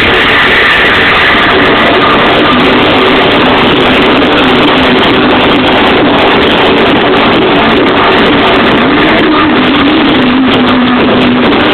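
Loud live electronic dance music from a club show, recorded so close to full level that it sounds distorted and flattened. A wavering held note sits low in the mix.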